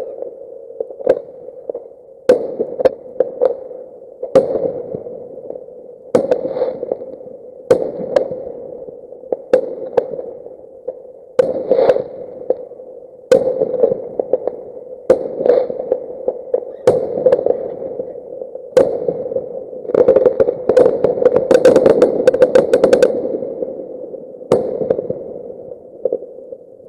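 Fireworks exploding, played at double speed: sharp bangs about one to two a second, then a rapid crackling volley of many pops near the end. A steady hum runs underneath.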